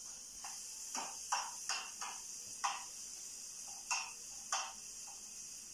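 Steady high sizzle of vegetables frying in a pan, with about eight short, unevenly spaced knocks and clicks of a cooking utensil against the pan and board.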